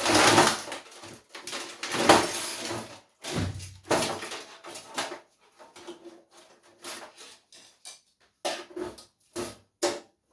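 Metal computer scrap being handled and pulled apart: clattering and scraping of sheet-steel case parts, loudest in the first three seconds, then lighter knocks and taps.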